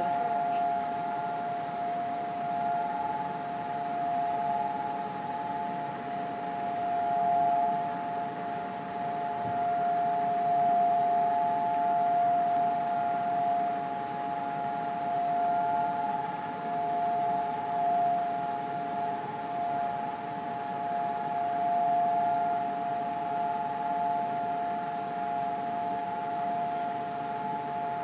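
Civil-defence siren holding one steady, level pitch without rising or falling: the Yom HaZikaron memorial siren, the signal for everyone to stand still in remembrance.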